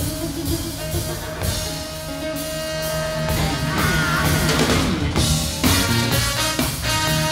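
A soul-funk band playing live: a drum kit keeps a steady beat under bass, guitar and horns, with a held note at first and a bending melody line about four seconds in.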